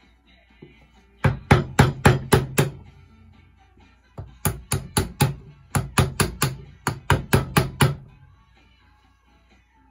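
Round wooden carver's mallet striking the handle of a carving gouge as it cuts into walnut: two runs of quick sharp knocks, about four a second, the second run longer.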